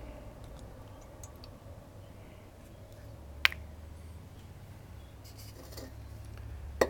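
Two short, sharp clicks, one about three and a half seconds in and one near the end, over a low steady hum.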